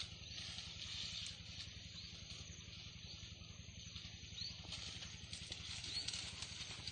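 Outdoor ambience with a steady high hiss and a low steady hum, and leaves rustling as an Asian elephant pulls at foliage with its trunk.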